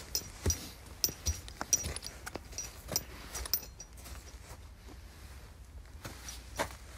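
Irregular close knocks and clicks with faint rustling: the handling and movement noise of someone shifting about. Most fall in the first four seconds, with one more near the end.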